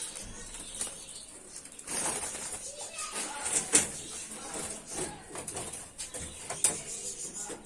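Budgerigars fluttering and chirping inside a small carrier box, mixed with irregular knocks and rustles from the box being handled.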